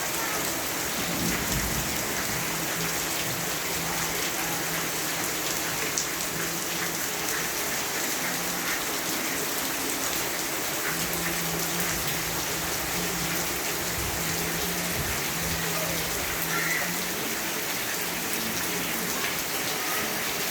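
Steady rain falling: a dense, even hiss of drops on surfaces that holds at a constant level.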